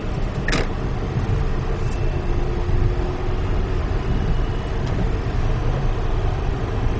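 Steady road and tyre noise inside the cabin of a Tesla electric car cruising at about 45–50 mph on a wet highway, with no engine note. One short click about half a second in.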